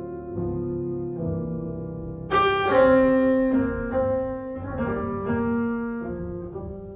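Background piano music: slow, sustained chords changing every second or so, with a louder, brighter chord about two seconds in, then fading toward the end.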